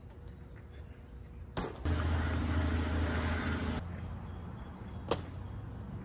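Downhill mountain bike being handled and mounted in a work stand: a knock, then a steady buzzing rasp about two seconds long that stops abruptly, and a sharp click about five seconds in.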